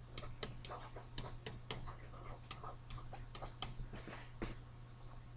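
Stylus tapping and scratching on a tablet screen while handwriting, heard as irregular sharp clicks, two or three a second, over a steady low electrical hum.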